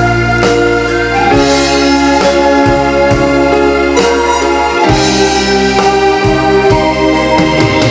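Instrumental break of a Korean trot song with no singing: sustained chords over a steady drum beat.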